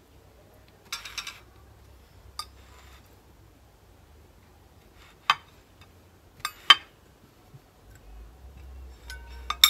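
Scattered clinks of dishes, glasses and cutlery being set down on a table: a quick cluster about a second in, a few single sharp clinks in the middle, and the loudest pair near the end.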